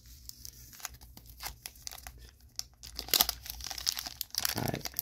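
Foil trading-card booster pack wrapper crinkling as it is handled, then torn open about three seconds in, with louder, dense crinkling and tearing of the foil.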